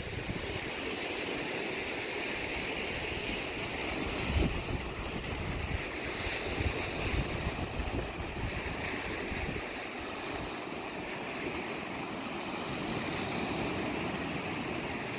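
Wind buffeting the microphone with a low, uneven rumble, over the steady wash of waves hitting the shore.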